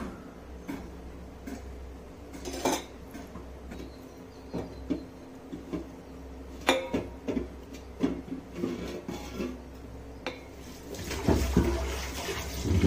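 Metal kitchen utensils clinking and knocking against vessels and kulfi moulds while cooled kulfi milk is filled into the moulds. There are scattered sharp knocks, with a busier run of clatter near the end.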